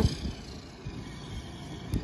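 Traxxas X-Maxx RC truck with its Big Block brushless motor driving across grass, a brief loud burst at the start dropping to a lower, steady running sound.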